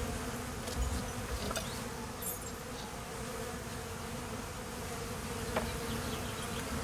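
A swarm of Carnica honeybees buzzing around their hives: a steady, even drone with a low hum. It is the sound of busy flight traffic during the spring nectar flow.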